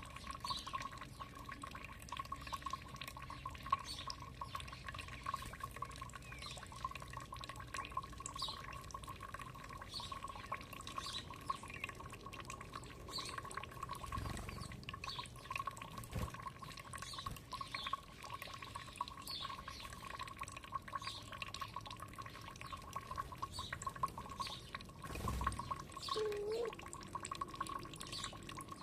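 Water trickling and dripping steadily, with short high drip or chirp sounds recurring about once a second. There is a low thump about halfway through and another near the end.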